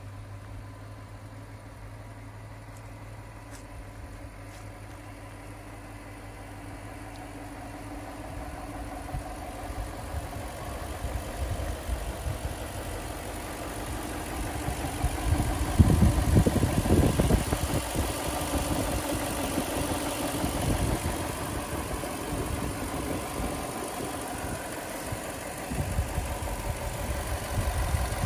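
2001 Toyota Land Cruiser's 4.7-litre V8 idling steadily with the hood open. It grows louder from about eight seconds in as the microphone moves over the engine bay, with irregular low rumbling that is loudest about halfway through.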